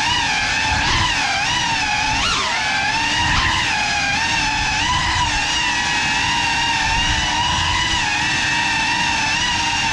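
Brushless motors and propellers of an iFlight Cinelog35 ducted cinewhoop FPV drone whining in flight. The pitch jumps up with quick throttle punches about a second in, near two and a half seconds and near three and a half seconds, then holds fairly steady.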